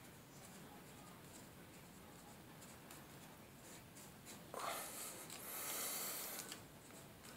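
Faint rubbing and scraping of plastic pipe fittings and flexible hose being handled and pushed together, with a louder scratchy rasp lasting about two seconds from around the middle.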